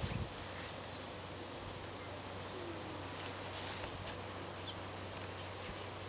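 Faint steady outdoor background with a low hum and a few soft chirps, and a couple of small ticks near the end.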